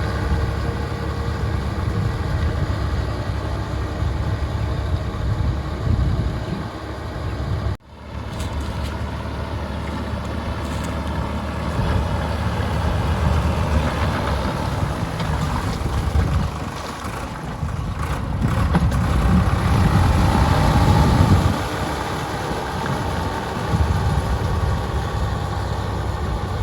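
Sonalika DI 745 tractor's diesel engine running under load as its rotavator churns wet paddy-field mud. The sound breaks off sharply for a moment about eight seconds in, and it grows louder for several seconds in the second half.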